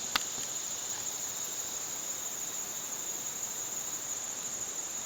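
Steady, high-pitched chorus of insects droning without a break, with one short click just after the start.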